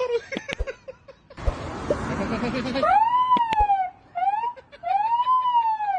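A boy imitating a police siren with his voice: three rising-and-falling wails in a row, starting about halfway through, after a second or so of rushing noise.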